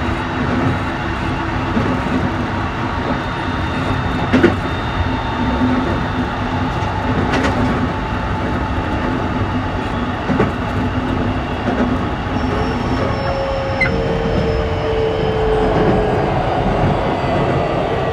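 Inside a Keikyu New 1000 series train car: steady wheel and running noise with a few sharp clacks over rail joints, and from about two-thirds of the way through, the Toshiba IGBT-VVVF inverter and traction motors start a whine that falls in pitch as the train slows.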